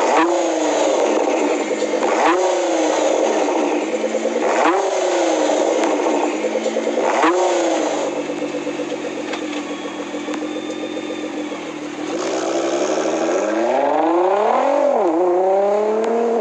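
Nissan GT-R's twin-turbo V6, breathing through an HKS catback exhaust and a non-resonated mid-pipe, idling between four sharp throttle blips about two and a half seconds apart. Near the end it climbs more slowly in revs over a couple of seconds, then drops back sharply.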